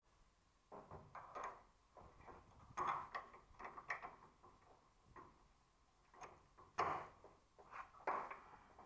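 Irregular light clicks and knocks of a bolt and washer being handled and fitted by hand into a door hinge on a Toyota HJ47's cab. The loudest knocks come about three seconds in, near seven seconds, and again a second later.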